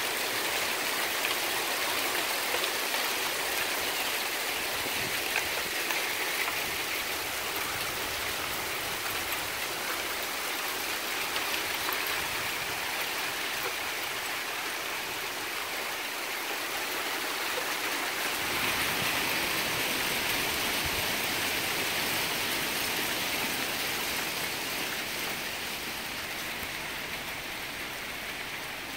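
Pea-sized hail pelting down steadily, a dense hiss of countless small pellets striking the ground and the roof.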